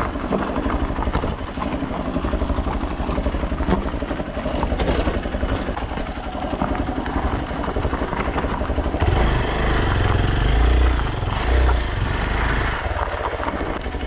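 Bajaj Pulsar single-cylinder motorcycle engine running as the bike is ridden slowly over a rough, stony dirt track. A heavier low rumble comes in for about four seconds past the middle.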